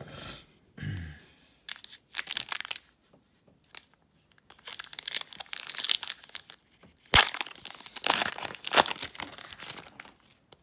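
Foil wrapper of a Donruss Optic basketball card pack being torn open and crinkled by hand, in irregular bursts of crinkling with one sharp crack about seven seconds in.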